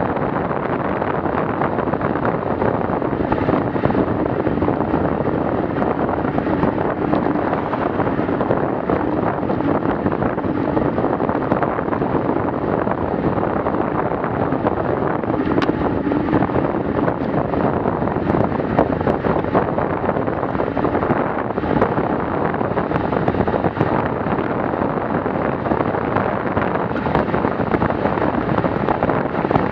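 Steady wind rush on the microphone of a handlebar-mounted Garmin VIRB action camera on a road bicycle riding at about 35 to 50 km/h.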